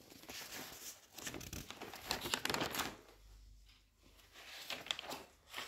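Close rustling and crinkling handling noise in several short stretches, loudest between about two and three seconds in.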